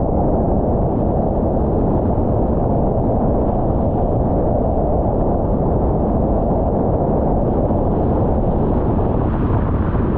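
Steady, loud wind buffeting on the microphone mixed with the rush of water from a Nacra 20 catamaran sailing fast on a beam reach in 14–18 knots of wind.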